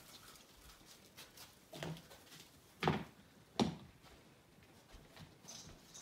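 Handling noise from a phone camera swept around Christmas tree branches, with light rustling and three short sharp knocks about two, three and three and a half seconds in, the last two loudest.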